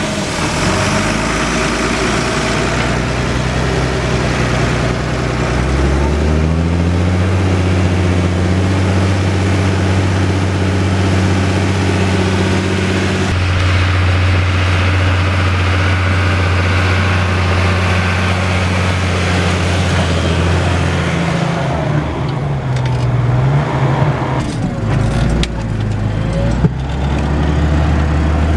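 Fendt Favorit 512 C tractor's six-cylinder diesel engine working hard while ploughing. Its pitch rises about six seconds in and holds steady, then dips and wavers for a few seconds near the end before settling again.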